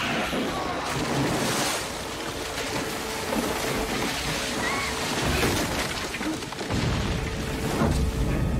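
Action-film soundtrack: crashing and splashing water over a held note of dramatic score. A heavy, low crash late on comes as a large tree topples into the river.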